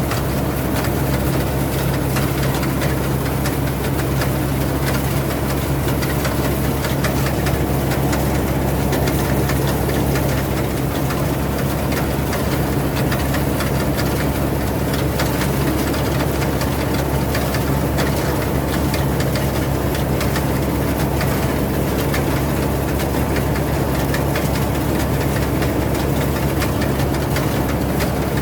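Rice combine harvester engine running steadily at a constant speed, with a low even drone and no change in pitch.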